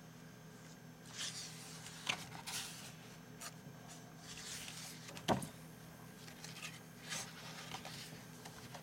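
Comic book pages being turned by hand: a run of short paper rustles and swishes, with one sharper snap of a page about five seconds in, over a faint steady hum.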